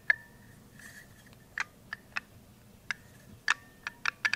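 Irregular sharp clicks of buttons being pressed on a handheld wireless remote, about ten presses, several in quick succession near the end.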